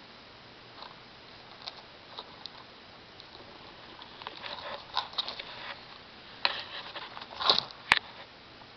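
Two degus grooming each other: soft scattered scratching and rustling with short quiet chirping sounds, busier in the second half, and one sharp click near the end.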